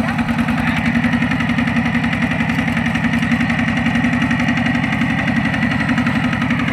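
Single-cylinder diesel engine of a two-wheel walking tractor running steadily, its firing strokes a fast, even beat, with a faint steady whine over it from about a second in.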